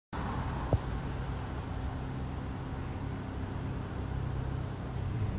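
A car running, heard as a steady low hum, with one sharp click under a second in.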